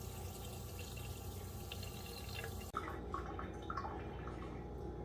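Water dripping and trickling over a steady low hum, with the sound changing abruptly a little past halfway.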